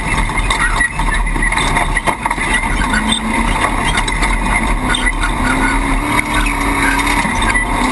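Off-road race truck running hard over rough desert ground: a steady heavy rumble with an engine note that rises and falls, and frequent small knocks and rattles.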